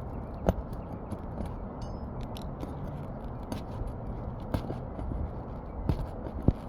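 Hand tool cutting and scraping at asphalt roof shingles, with a few sharp clicks and snaps, the loudest about half a second in and near the end.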